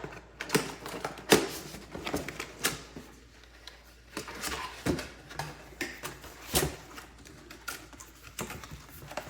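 Espresso accessories being taken out of their cardboard packaging by hand: irregular clicks, knocks and light rustling of card and wrapping.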